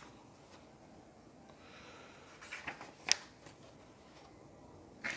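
Pages of a paperback book being turned and handled: soft paper rustling, with a sharp tap about three seconds in and a smaller knock near the end.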